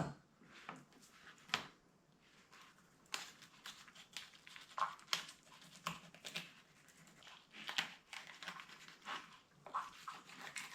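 Filleting knife cutting and scraping through fish flesh and skin on a cutting board: irregular short scrapes, slices and taps.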